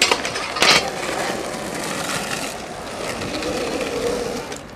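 Skateboard rolling along with a steady wheel rumble, and two sharp clacks within the first second.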